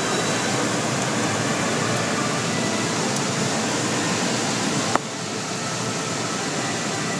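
Steady rush of an automatic car wash's water spray hitting the car, heard from inside the cabin. A sharp click comes about five seconds in, after which the rush is slightly quieter.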